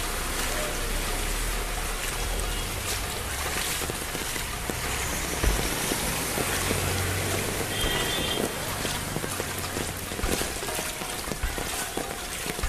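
Heavy rain pouring steadily onto a flooded street, a continuous hiss of rain and running water.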